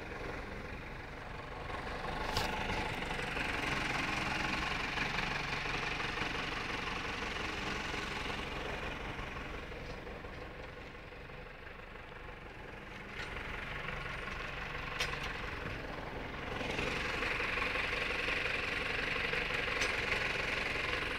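Tractor engine running steadily, heard from the driver's seat. It gets quieter for a few seconds around the middle, then louder again, with a few faint clicks.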